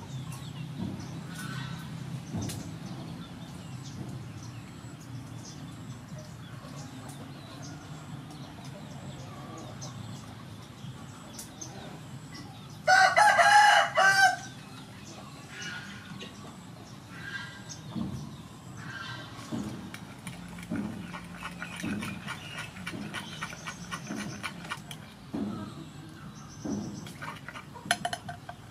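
A rooster crows once, loud, about halfway through, lasting about a second and a half. Faint scattered clicks and chirps come before and after it.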